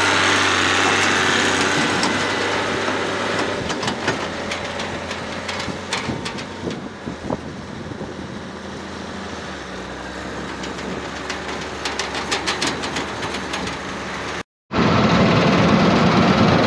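John Deere 4640 tractor's six-cylinder diesel engine running steadily at low speed while backing up a tub grinder, with scattered light clicks and rattles. Near the end the sound drops out briefly and comes back as a louder, closer take of the engine.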